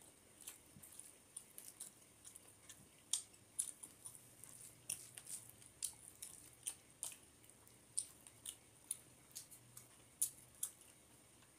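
Close-miked eating by hand: irregular wet clicks and smacks, a few a second, from chewing and from fingers mixing rice and fish curry on a metal plate.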